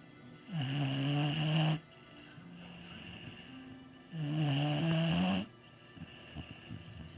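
Boxer dog snoring loudly: two long, pitched snores about three and a half seconds apart, each lasting over a second, with quieter breaths between and a few short, faint snuffles near the end.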